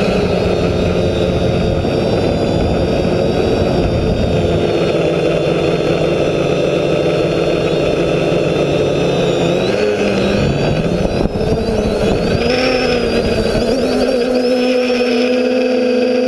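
TBS Discovery quadcopter's brushless motors and propellers buzzing in flight, several tones together. Their pitch wavers and shifts with throttle about two-thirds of the way in, then holds higher and steady near the end.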